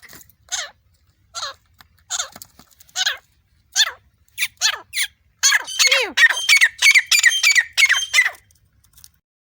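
Partridge (teetar) calling. Short calls that sweep down in pitch come about once a second, then a quick run of several calls a second follows, ending a second before the end.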